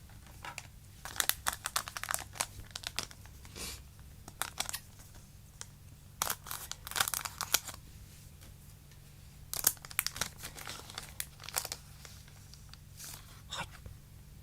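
Foil wrapper of a Duel Masters trading-card booster pack crinkling and tearing as it is opened by hand, in several short bursts of rustling.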